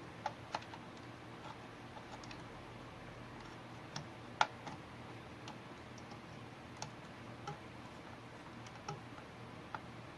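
Scattered light clicks and taps of hands handling computer hardware inside a desktop case, irregular, with one sharper click about four and a half seconds in.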